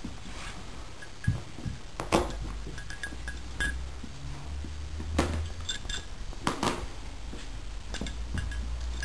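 A German shepherd puppy and another young dog playing together: scattered sharp knocks and clicks from paws and bodies bumping on the floor, with small clinks, over a low rumble.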